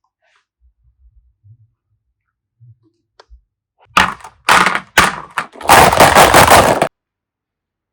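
Slime being handled and squeezed, making loud crackling, crunching noise: a few soft knocks, then three short crackling bursts and a longer one of about a second that stops abruptly.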